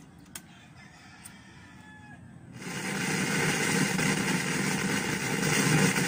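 A key clicks on the deck of a Technics SA-K6 stereo cassette receiver. About two and a half seconds in, a loud steady hiss of static starts from the receiver's left channel in tape mode with no cassette playing. It is the distorted output of a faulty oscillator coil whose built-in capacitor is leaky and nearly shorted.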